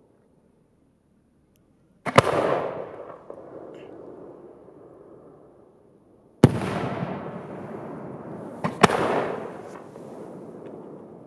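Aerial firework shells going off with sharp bangs: one about two seconds in, another around six and a half seconds, and a close pair near the end. Each bang is followed by a rolling echo that fades over a second or two.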